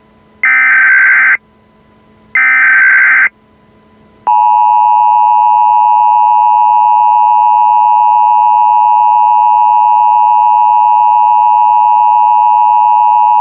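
Emergency Alert System test tones: the last two of the three SAME header data bursts, each about a second long and a second apart, then, about four seconds in, the steady two-tone EAS attention signal, sounding loudly and without a break.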